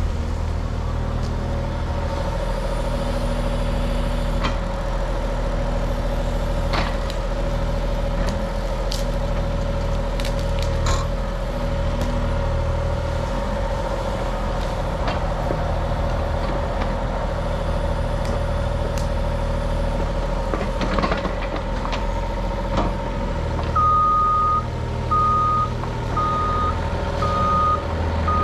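Cat 303.5 mini excavator working a root rake: diesel engine and hydraulics running steadily, with occasional knocks. From near the end its travel alarm beeps at an even rate, a little more than once a second, as the machine moves.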